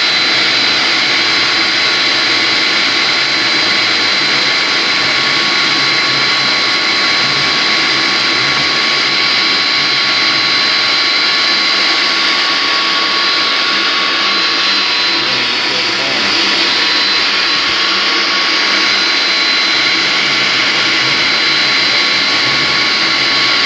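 An electric motor running steadily at constant high speed, with a steady high whine over a dense hum.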